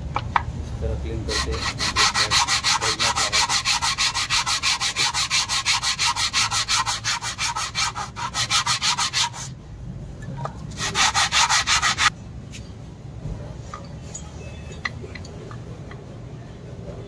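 Quick, even rasping strokes from a hand tool working on the car, in one long run of about eight seconds and then a short run of about a second. Scattered small clicks follow.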